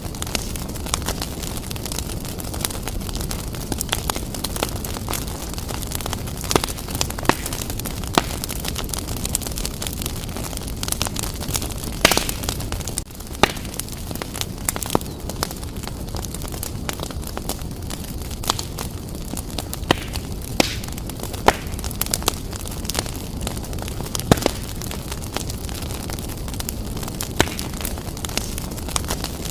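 Wood fire burning briskly in a fireplace: a steady rush of flame with sharp crackles and pops at irregular intervals, several close together near the middle.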